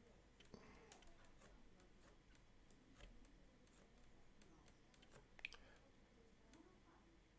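Near silence with faint, irregular clicks and taps from a mouse and pen tablet used for drawing, one slightly louder click about three quarters of the way through.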